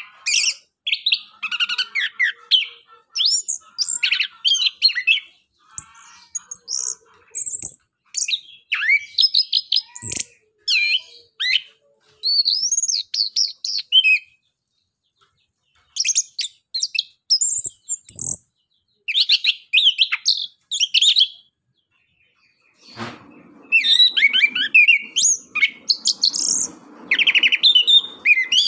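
Caged chestnut-capped thrush (anis kembang) singing in rapid, varied phrases of sharp whistles and twittering chatter, broken by short gaps and two longer pauses of a second or two. From about 23 s a low rushing noise sits beneath the song.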